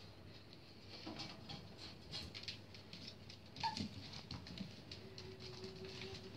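Cairn terrier puppies' claws clicking and pattering on a tile floor as they scamper about, with a single louder, briefly pitched sound that falls in pitch a little over halfway through.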